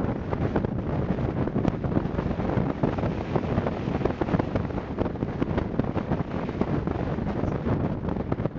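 Wind buffeting the microphone of a camera on a moving car, a dense rushing noise with many small irregular gusts, over the car's steady road noise.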